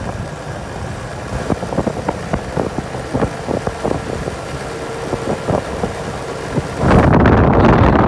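A motor vehicle's engine running as it drives along a road, with irregular knocks and rattles. About seven seconds in, loud wind buffeting on the microphone suddenly takes over.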